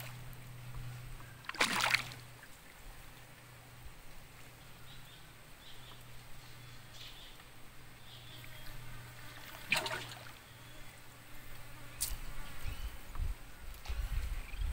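Quiet river water lapping and trickling around a small wooden boat, under a steady low hum. Two short, sharp louder sounds come about two seconds in and again near ten seconds, with faint high chirps in between.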